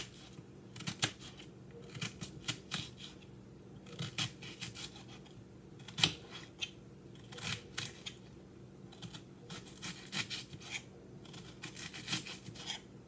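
Knife chopping a red onion on a cutting board: irregular runs of quick, sharp taps with short pauses between them.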